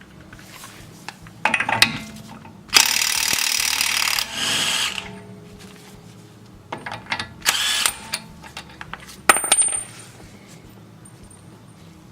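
Impact wrench running in several short bursts, the longest about two seconds, spinning off the 30 mm front axle hub nut, with a few metallic clinks between bursts.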